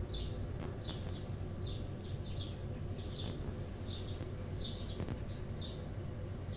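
A small bird chirping over and over, one short, high, falling chirp roughly every two-thirds of a second, sometimes two close together, over a steady low background rumble.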